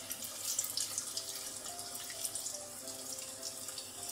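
Noodle-and-vegetable pakora batter deep-frying in medium-hot oil in a kadai: a steady sizzle with many small crackles, and faint music notes underneath.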